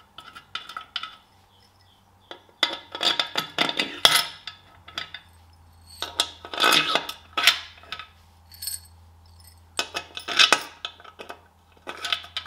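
Long metal bolts clinking together in a hand and rattling into the bolt holes of a tractor engine's sump flange as they are set in one by one, in bursts of clinks a few seconds apart.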